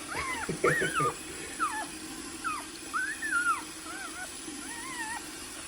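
Newborn puppy whimpering: a run of short, high-pitched squeaks, about two a second, each rising and falling in pitch.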